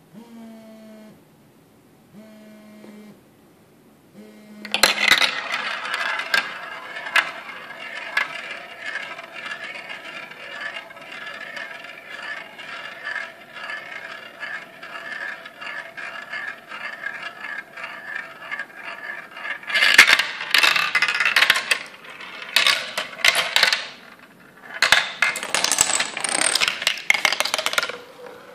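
A mobile phone vibrating in three short buzzes, then a glass marble rolling and rattling down a plastic marble run, circling a spiral funnel with a steady whirring roll and small clicks. About twenty seconds in, and again near the end, wooden blocks topple into each other in clattering runs of knocks, like falling dominoes.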